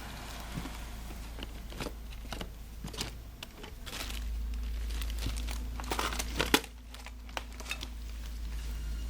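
Crinkling and rustling of a thin sheet being handled: irregular small clicks and rustles, busiest about six seconds in.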